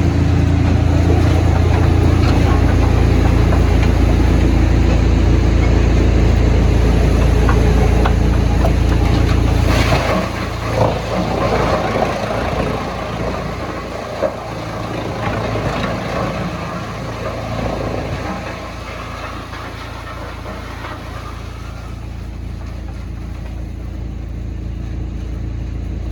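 Heavy machine engine running steadily with a deep hum. About ten seconds in a sharp knock comes, the engine drops to a quieter, lower run, and a few scattered knocks and clatter follow.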